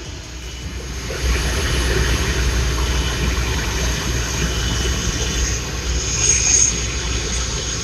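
Steady low rumble and noise of a running vehicle, growing louder about a second in and holding level.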